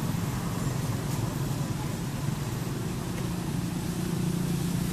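Steady low rumble of a running engine, growing a little louder near the end.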